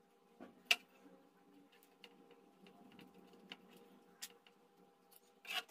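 Light metallic clicks and knocks of a finned aluminium heatsink being handled and shifted inside an amplifier chassis: a sharp click about a second in, another near four seconds, and a short rattle near the end, over a faint steady hum.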